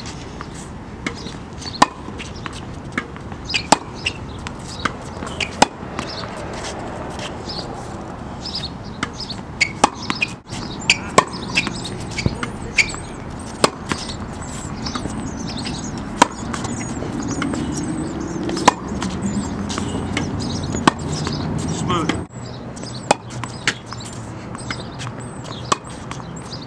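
Tennis racket striking balls on a hard court, a sharp pop every second or two with fainter ball bounces between.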